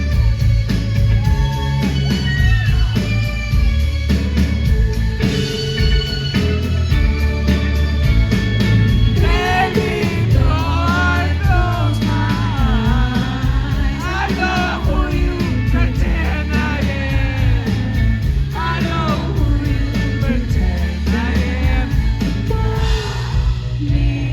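A live band plays a pop-rock song with a steady drum beat and bass while a woman sings the lead. Her vocal comes forward about nine seconds in.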